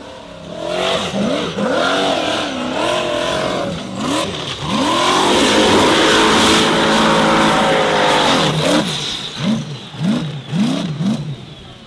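Formula offroad race buggy's engine revving hard, its pitch rising and falling again and again. It holds at high revs for a few seconds in the middle, then gives a quick run of short blips near the end.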